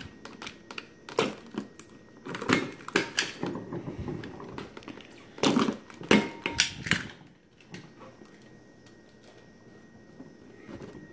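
Clear plastic blister packaging crackling and clicking as it is handled and pried open, a run of sharp snaps over the first seven seconds or so, then only faint handling.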